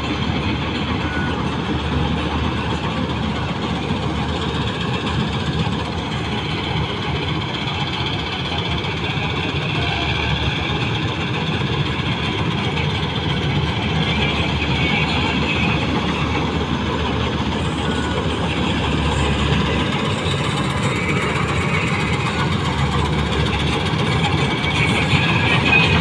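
Malkit self-propelled combine harvester running steadily as it harvests rice: a continuous drone of engine and threshing machinery that grows louder toward the end as the machine comes close.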